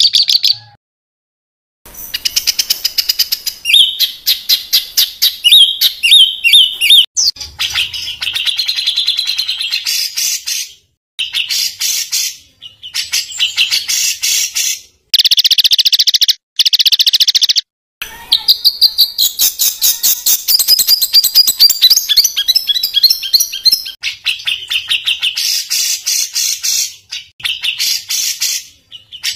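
Songbird song of fast, harsh rapid-fire note trills ('tembakan kasar'), repeated in bursts of many quick notes. The song breaks off abruptly into brief dead silences several times, like spliced recordings.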